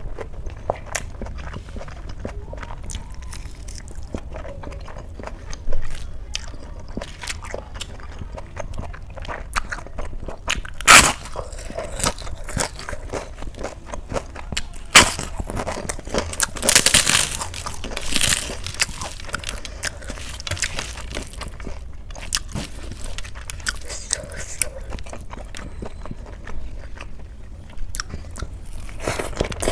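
Close-miked eating sounds: a person chewing and biting food, with wet clicks of the mouth and a few louder crunchy bites scattered through.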